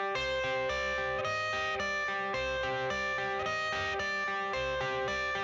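Background music: a guitar playing a repeating pattern of plucked notes over a steady bass line.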